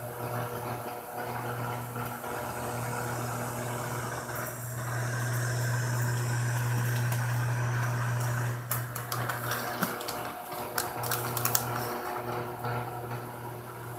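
Electric fan running with a steady low hum. From a little past halfway, a plastic bag of shredded cheese crinkles in a run of sharp crackles as it is handled.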